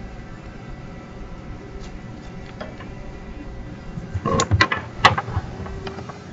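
Steady room hum with a few faint clicks, then a short cluster of louder knocks and clicks a little past the middle, the sharpest one about a second later.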